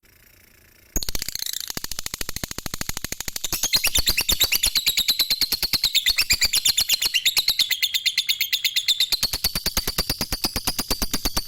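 Lovebird chattering in a long 'ngekek' song: a fast, unbroken run of sharp, high repeated notes. It starts about a second in and grows louder a couple of seconds later.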